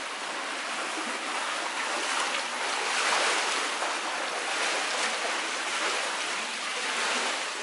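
Water splashing and churning as swimmers thrash and swim front crawl in a swimming pool, a steady wash of splashing that swells a little midway.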